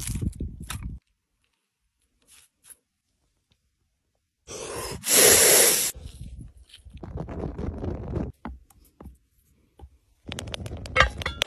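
Hand-packed snow crunching at first, then after a pause a match struck on a wooden stump, flaring with a loud hiss for about a second and a half. Softer scraping and rustling follow, and a second loud hiss builds near the end.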